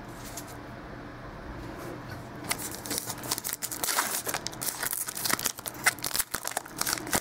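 A trading-card pack's wrapper crinkling and tearing as it is pulled open by hand, a quick run of crackles starting about two and a half seconds in.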